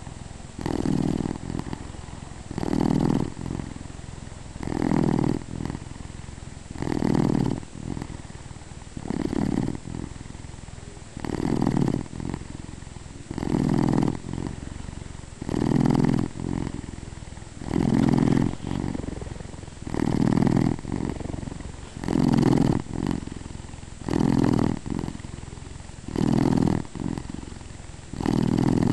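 A sleeping domestic cat purring and snoring in time with its breathing: a louder snore-purr about every two seconds, with softer purring between.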